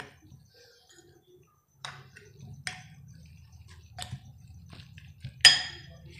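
Metal spoon stirring a thick, pasty mix of spiced minced chicken in a glass bowl, clinking against the glass about five times at irregular intervals. The loudest clink comes about five and a half seconds in, over a faint low hum.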